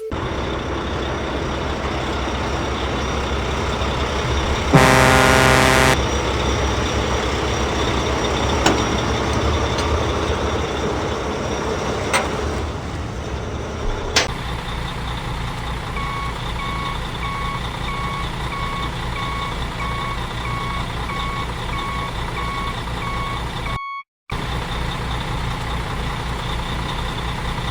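A heavy truck engine running steadily, with one loud horn blast about five seconds in. Later comes a long series of evenly spaced reversing beeps. The sound cuts out for a moment near the end.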